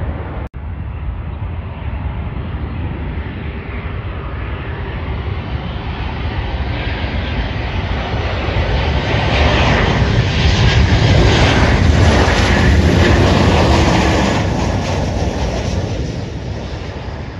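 United Airlines Boeing 737 jet engines on final approach for landing. The engine noise grows steadily louder as the airliner passes close by, peaks, then fades as it flares over the runway to touch down.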